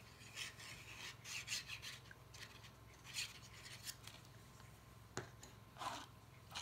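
Faint scratchy rubbing and rustling of a cardstock box being handled and pressed, in several short strokes, with a light tap a little past five seconds in.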